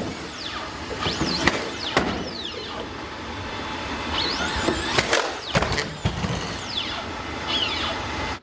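Boston Dynamics Atlas humanoid robot moving and jumping: its hydraulic actuators whine in high glides that rise and fall, with several knocks as it lands and pushes off.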